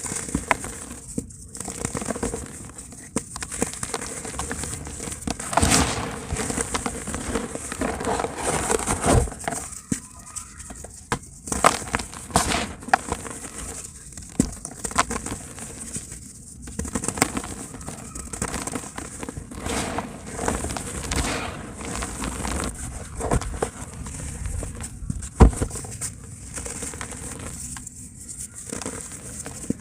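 Dry pure cement being crumbled in a tub, a continuous irregular crackling and crunching made of many small clicks, with one sharper crack near the end.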